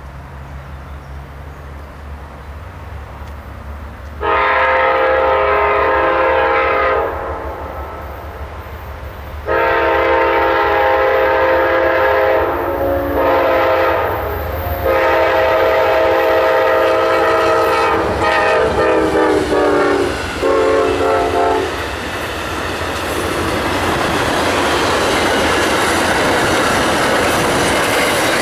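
Amtrak locomotive's multi-chime air horn sounding long, long, short, long, the grade-crossing signal, then one more short blast, over a diesel engine rumble. The horn's pitch drops as the locomotive passes. The passing train's wheels then clatter over the rails.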